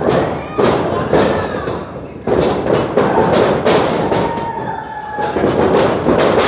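Wrestling-ring action: a run of sharp thuds and slaps from bodies and strikes on the ring, coming every half second or so at times, over a noisy background.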